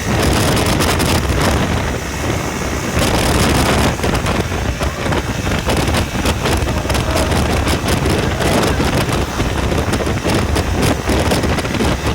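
Panther 125cc ATV engine running while riding, largely buried under heavy wind buffeting on the microphone.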